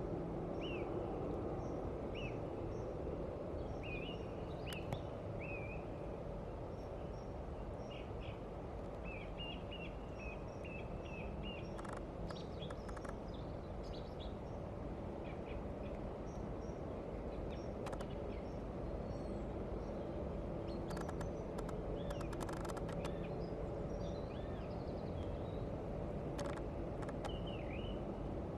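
Steady wind noise with small birds calling in short, scattered chirps, and a few sharp clicks.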